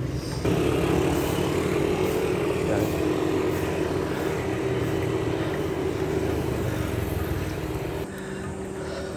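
Street traffic noise, with motorcycle engines running nearby, steady until it eases off about a second before the end.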